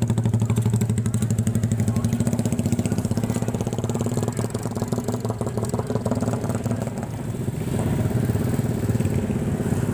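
Motorcycle engine idling close by with a fast, even throb, growing less steady and slightly quieter about halfway through.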